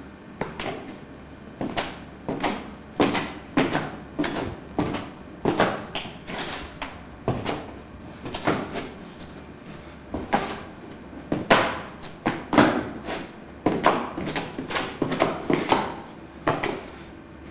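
Southern Mantis kung fu form being performed: quick, irregular slaps, stamps and snaps from the practitioner's strikes, footwork on stone paving and clothing, one or two a second.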